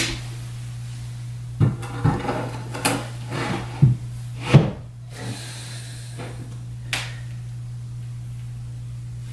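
Thick cedar shelf plank knocking and scraping as it is worked onto steel square-bar wall brackets: about half a dozen wooden knocks, mostly in the first five seconds, with one more about seven seconds in. A steady low hum runs underneath.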